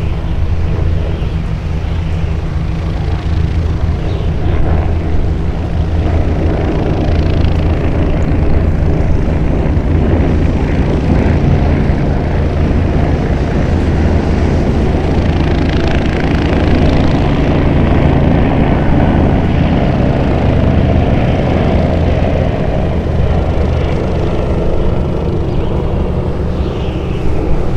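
An engine running steadily, a continuous low droning hum.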